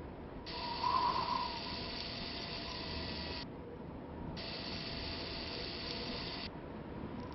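Added mechanical sound effect for the rover's machinery: a ratcheting motor-and-gear sound that runs in two stretches of about three and two seconds, each switching on and off abruptly, with a brief louder burst about a second in.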